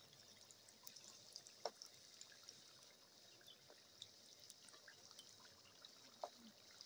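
Faint, steady sizzle of food frying in hot oil, with scattered small crackles and a couple of soft knocks.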